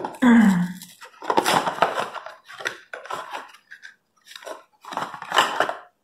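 Cardboard hair-dye box being torn open by its flap and a bottle pulled out: crackling, crunching rustles in four or so bursts. At the very start there is a short low hum that falls in pitch, and it is the loudest moment.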